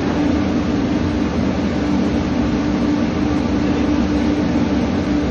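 Steady drone of a ship's running machinery, with an unchanging low hum under an even rushing noise.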